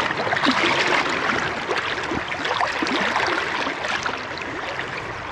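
Fast-flowing river current rushing and gurgling, a steady water noise with many small splashy gurgles.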